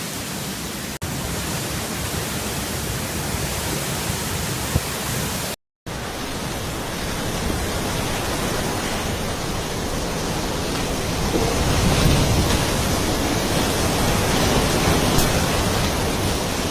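Typhoon wind and rain: a steady, dense rush of noise that grows a little louder in the second half, with a brief gap in the sound about six seconds in.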